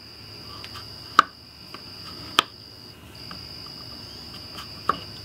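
Screwdriver and metal parts of a Porter-Cable framing nailer clicking as its rear exhaust cap is refitted and snugged down: a few sharp clicks, the loudest about one and two and a half seconds in. A steady high-pitched whine runs underneath, breaking off briefly about three seconds in.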